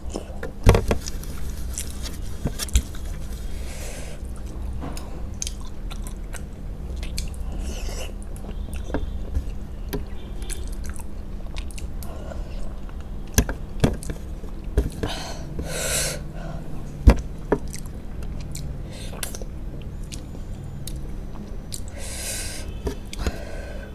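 Close-up mouth sounds of someone eating a rice-and-curry meal: chewing and biting, with scattered sharp clicks and wet smacks, over a steady low hum.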